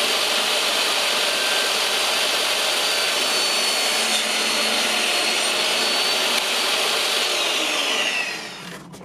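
Portable table saw running at full speed while a thin board is ripped with a push block. Near the end the motor is switched off and runs down with a falling whine.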